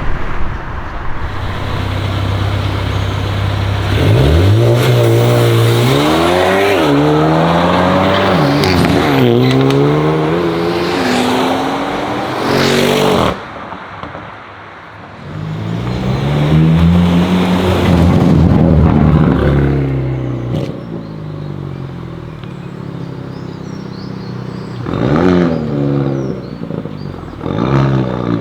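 Hyundai i30 N's turbocharged 2.0-litre four-cylinder revved repeatedly through its exhaust. It idles at first, then runs through a series of rev-ups that climb and fall from about four seconds in. After a short break it gives one long rev, then two short blips near the end.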